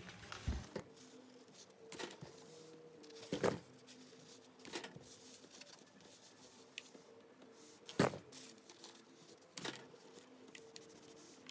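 Steam iron pressed and slid along a folded fabric bias strip on an ironing board, with fingers folding the fabric: about six soft knocks and rustles spread out, with quiet between.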